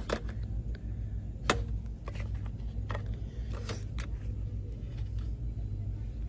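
Clicks and knocks of items being picked up and handled over a steady low rumble, with one sharp knock about a second and a half in.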